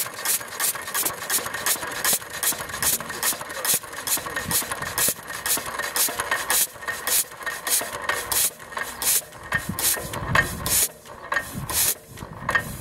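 Old single-cylinder stationary engine running: a rhythmic mechanical clicking from its valve gear, about four clicks a second at first, slowing to about two a second in the second half, with a few deeper beats near the end.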